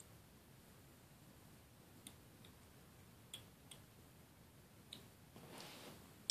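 Faint, sparse mouth clicks of a young kitten suckling at a hand feeder, a few single clicks seconds apart, with a short soft rustle near the end.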